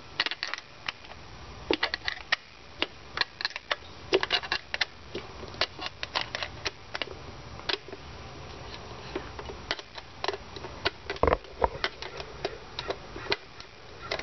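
Small hand wrench working a bolt on a car distributor cap: irregular light metallic clicks and taps as the bolt is loosened, with one heavier knock about three seconds before the end.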